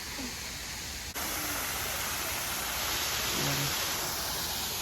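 Steady rush of a waterfall's falling water, an even wash of noise that jumps suddenly louder about a second in.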